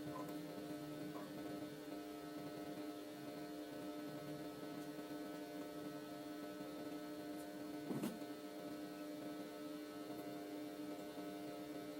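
Steady electrical hum made of several fixed tones, with a single light knock about eight seconds in.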